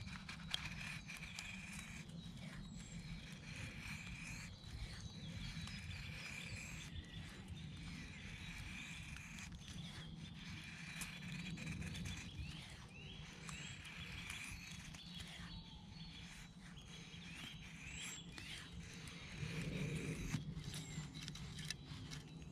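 Bushcraft knife shaving thin curls down a dry wooden stick, one stroke after another, as a feather stick is carved, with birds calling. A louder low sound comes near the end.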